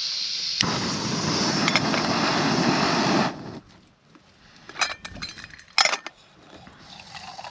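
MSR Pocket Rocket (original version) canister gas stove: a hiss of gas, a click a little over half a second in, then the burner running loudly under a pot for nearly three seconds before it stops suddenly. A few light metal clinks from the pot and its lid follow.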